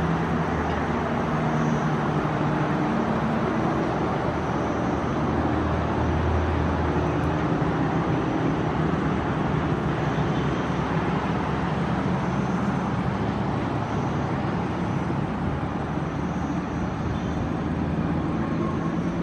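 Diesel locomotive engine running with a steady low hum as a train approaches, the pitch of the drone stepping slightly now and then.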